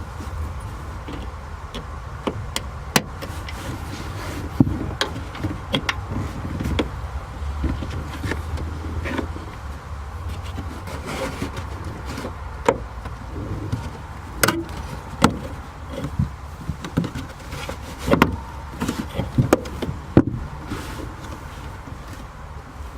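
Irregular clicks and knocks from hands working wiring and trim inside a car, over a low steady rumble.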